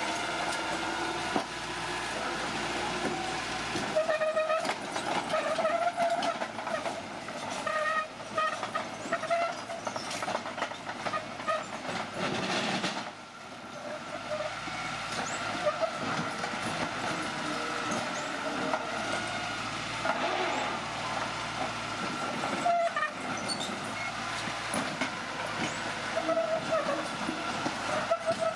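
Crawler bulldozer working: its diesel engine runs under the clatter of the steel tracks, with wavering metallic squeals from the tracks and a steady stream of clanks.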